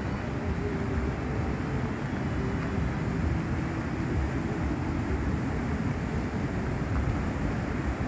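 Steady rushing of a waterfall, mixed with wind buffeting the microphone.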